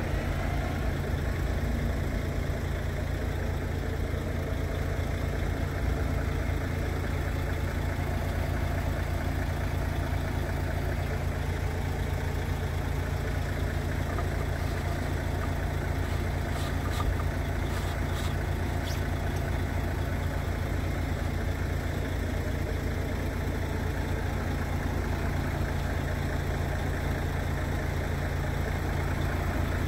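Scania R450 truck's 13-litre inline-six diesel engine idling steadily, a deep even hum. A few light clicks about two-thirds of the way through.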